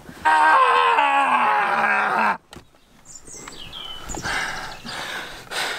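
A man's drawn-out vocal groan, about two seconds long, wavering and falling in pitch. After it comes a short high squeak and quieter scuffling.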